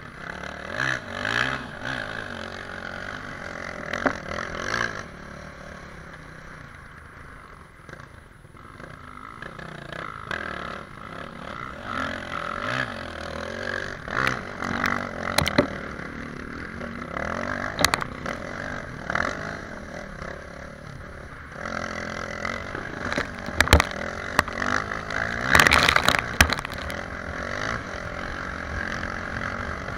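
Motoskijoring run heard on board: a motorcycle engine running hard and changing pitch, under a steady scraping rush of skis and tyres on icy snow. Many sharp knocks and clatters come through, thickest about three-quarters of the way through.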